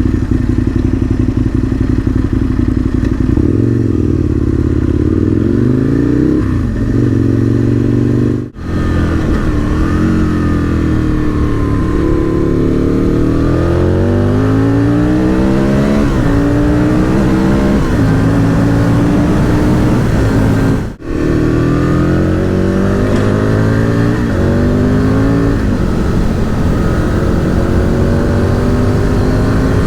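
Aprilia RSV Mille R's V-twin engine, through an Akrapovic exhaust, under way: the engine note climbs and falls repeatedly as the bike accelerates and eases off. The sound breaks off for an instant twice.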